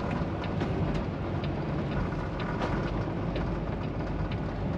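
Steady drone of a Peterbilt semi-truck's engine and tyres heard from inside the cab while driving, with a few faint rattles scattered through it.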